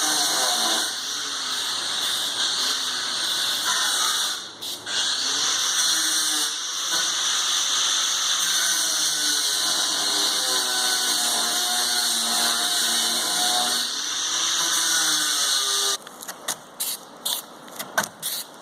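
Aerosol can of bedliner spraying in a long, steady hiss, broken by brief let-offs about a second and four and a half seconds in. Near the end the spray stops and a run of quick sharp clicks follows.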